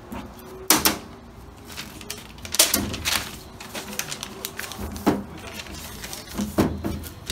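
A handful of irregular knocks and clunks, about six in all, the loudest a little under a second in.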